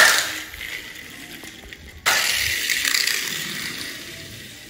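Toy spider car launcher firing with a sharp snap, then the small plastic car rattling across a tile floor. A second stretch of rattling starts suddenly about two seconds in and fades away.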